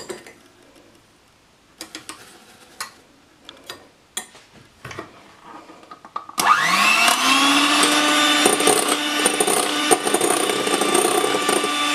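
A few light clicks of a spoon scooping sugar from a cup. Then, about six seconds in, an electric hand mixer starts, its motor whine rising quickly to a steady high speed as it beats egg whites with sugar into meringue.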